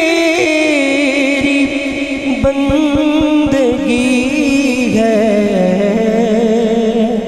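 A man singing an Urdu/Punjabi naat unaccompanied into a microphone over a PA, drawing out long ornamented notes with a wide vibrato. A run of soft low knocks sounds under the voice between about one and a half and three and a half seconds in.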